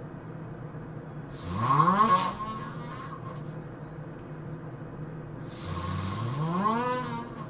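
A man snoring: two long, loud snores about four seconds apart, each rising in pitch as it goes, over a steady hum.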